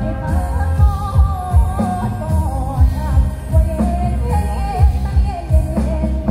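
Loud Asian pop song with a singing voice over a heavy bass beat, played through large trailer-mounted sound-system speaker stacks.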